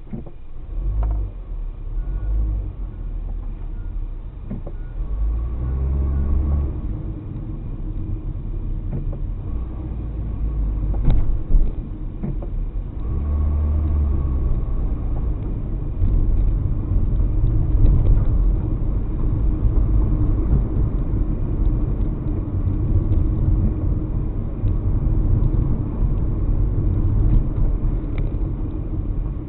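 A car driving, heard from inside the cabin: a steady low engine and road rumble that comes in suddenly at the start, with the engine picking up speed a couple of times.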